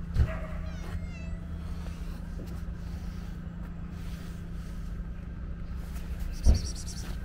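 A cat meowing once, a drawn-out call about a second and a half long near the start, over a steady low hum. A loud thump about six and a half seconds in.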